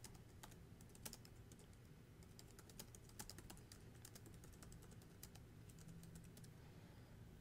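Faint computer keyboard typing: irregular key clicks over a low steady hum.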